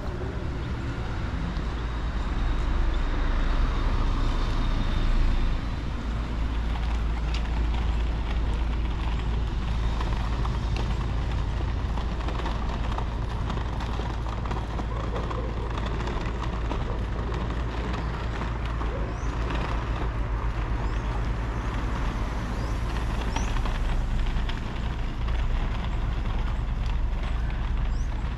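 City street ambience: a steady wash of motor traffic going by, with a constant low rumble.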